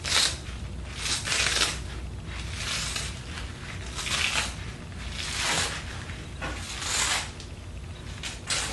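Copper magnet wire being pulled off a small microwave fan motor's coil spool by hand, a series of short rustling, scraping strokes about every second and a half.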